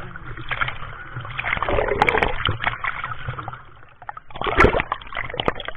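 Water splashing and sloshing in irregular bursts, with two louder splashes, about two seconds in and again past the middle.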